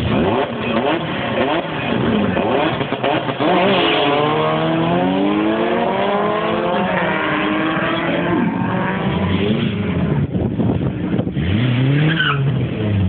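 Two Volkswagen drag cars launch off the line and accelerate hard down the strip. Their engines rev up through the gears, the pitch climbing and dropping back at each shift, in long rising pulls that fade as they get farther away. Near the end a nearer engine revs up and back down once.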